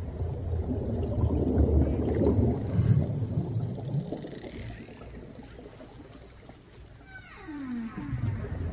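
Whale song recorded underwater: a low churning rumble for the first few seconds that fades, then, about seven seconds in, a swooping call that slides down in pitch.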